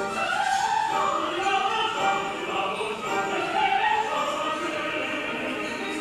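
Opera-style classical singing with orchestral accompaniment, sustained sung notes that glide in pitch.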